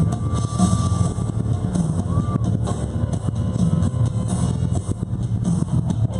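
Loud music with a heavy, pulsing bass beat playing for a fire-dance show.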